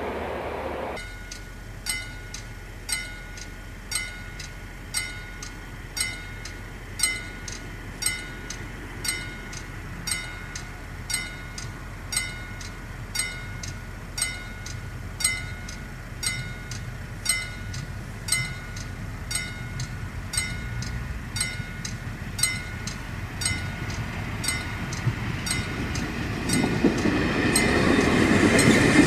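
Level crossing warning bell striking steadily about once a second, with a steady high ring between strikes. In the last few seconds a diesel passenger railcar approaches and its rumble rises. A different low noise cuts off abruptly about a second in.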